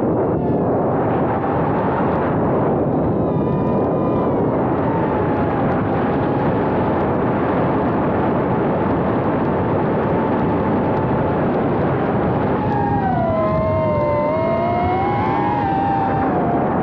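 Small FPV quadcopter's brushless motors and propellers whining loudly in flight, heard up close from a camera riding on the drone. The whine's pitch wanders with the throttle, dipping lower and climbing back again near the end.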